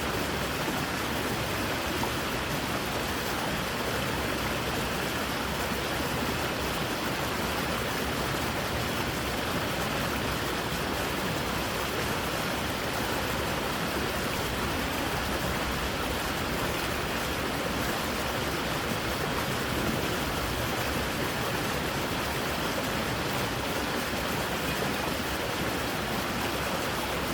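Creek water rushing over rocks in a steady, even rush.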